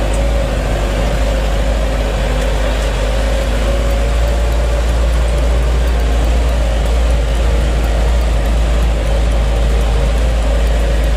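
Isuzu Elf microbus on the move, heard from inside the cabin: a steady drone of diesel engine and road noise with a deep rumble underneath and a constant hum.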